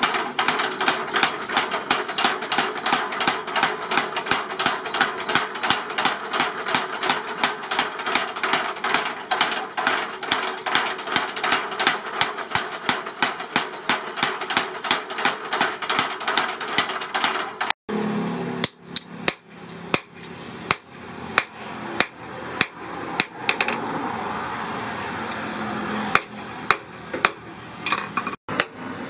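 Mechanical power hammer striking hot steel in rapid, evenly spaced blows. After a cut, a hand hammer strikes the blade on an anvil in slower, single ringing blows.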